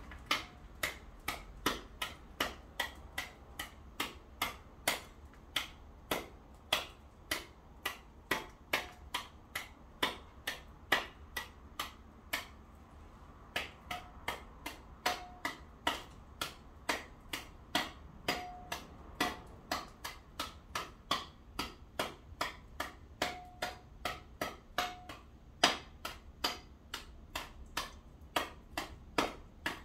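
Steady sharp knocks, about two a second, some with a brief metallic ring: a hand tool chipping at ice on a paved driveway.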